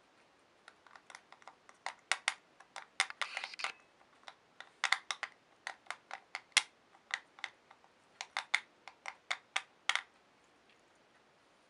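Cat licking and mouthing a small round tin held up to its face: quick, irregular clicks in spurts that stop about ten seconds in.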